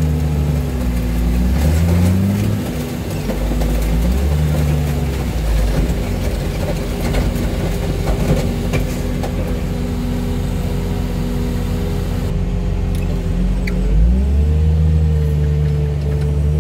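Diesel engine of a heavy hydraulic machine running, its speed stepping up and down several times as the hydraulics are worked, with a clear rise near the end.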